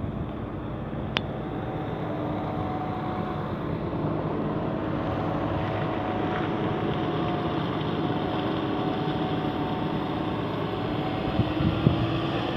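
Fire engine's diesel engine running at a steady speed, driving its fire pump with hoses connected. A single sharp click about a second in.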